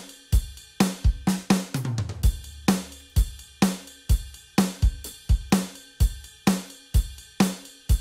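Drum voices of a Yamaha PSR-S975 arranger keyboard playing a steady 60s rock and roll beat sequenced over MIDI: kick and snare hits in an even rhythm with cymbals over them.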